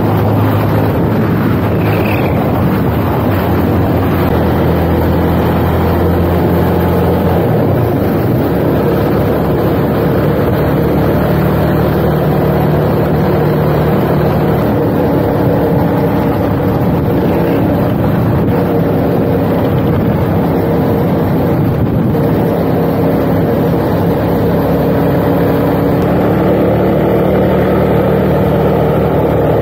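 Motorcycle engine running at riding speed, with wind noise on the bike-mounted camera's microphone. The engine note holds steady and changes about seven or eight seconds in.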